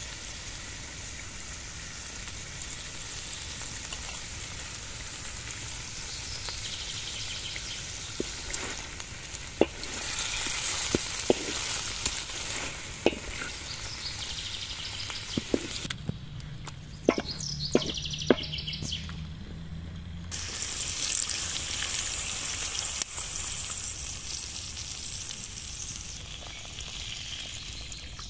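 Lamb pieces frying and sizzling in oil in a large black metal pan, with a wooden spatula knocking and scraping against the pan as the meat is stirred and turned, a dozen or so sharp knocks through the middle.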